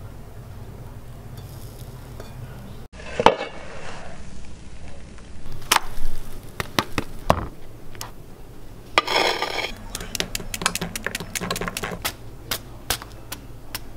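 Kitchen cooking sounds: a spatula knocking and scraping in a non-stick frying pan as a pancake is turned, then scattered clicks and clatter of utensils and plates. A low steady hum runs for the first three seconds or so, before a cut.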